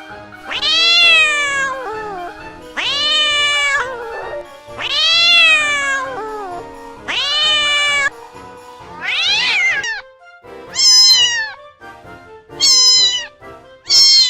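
Domestic cat meowing again and again, about eight meows, each rising and then falling in pitch. The first few are long and drawn out, and those in the second half are shorter and sharper. Soft background music runs underneath.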